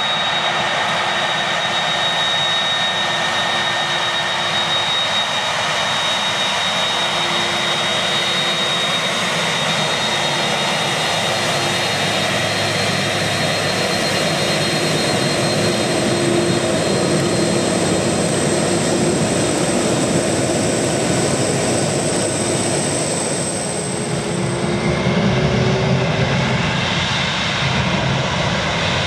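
Airbus A300-600 twin turbofan jet engines running at low power as the airliner taxis, a steady whine with high whistling tones. About 24 s in, the high whistle fades and the engine sound grows louder and lower.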